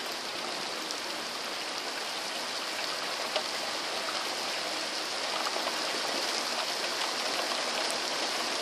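Heavy rain falling steadily, a dense even hiss, with one brief sharp tick a little over three seconds in.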